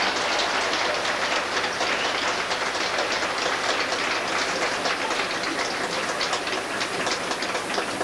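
A large indoor audience applauding, with dense clapping that thins a little toward the end.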